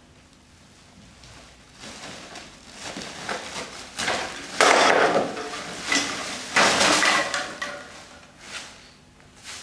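Black plastic bin bag rustling as it is opened and shaken out, its rubbish of paper, plastic and small containers spilling and clattering onto a hard floor. It starts about two seconds in, is loudest in the middle, and ends in a few scattered knocks.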